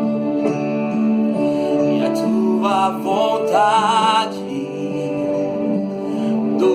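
Instrumental worship music: sustained keyboard-pad chords, with a short wavering melodic phrase with vibrato about three seconds in.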